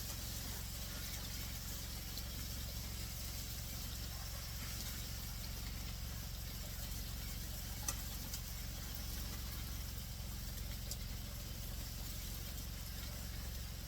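A steady low motor hum under an even hiss, with a single sharp click about eight seconds in.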